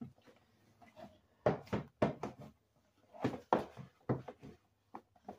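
A clear plastic storage drawer being handled and wiped out on a wooden table: a run of knocks, rubs and scrapes of plastic, in two bursts about a second and a half and three seconds in.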